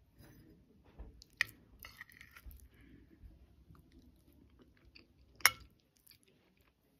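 Quiet chewing of a mouthful of beef and potato stew with rice, being tasted. Two sharp clicks cut through it, a small one about a second and a half in and a louder one near the end.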